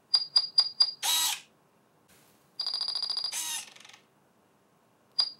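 Electronic warning beeper of a DIY FPV ground station sounding four short high beeps, then the RC servo whirring briefly as it moves the antenna mount drawer. About two and a half seconds in, a longer buzzing beep is followed by another short servo whir, and near the end the four beeps start again. The tones warn that the antenna has been disconnected and the drawer is about to release.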